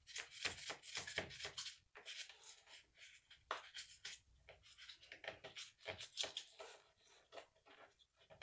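Faint, irregular scratching and clicking of thin feeder wires being pushed and worked down through a drilled hole in a model railway layout's foam base.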